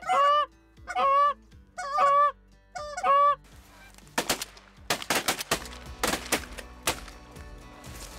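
Four loud honks from a Canada goose call blown by a hunter, then a rapid volley of shotgun blasts from several guns, starting about four seconds in.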